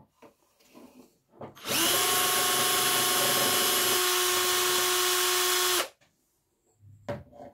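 Cordless drill running steadily for about four seconds, spinning a bicycle dynamo's shaft; it starts about a second and a half in and stops suddenly. Faint handling clicks come before and after.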